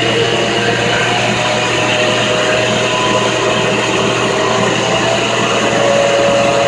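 1946 Monarch 10EE precision lathe running forward at high spindle speed, near 1,500 RPM, driven by its motor-generator set. It gives a steady mechanical whine over a low hum, with a few held tones.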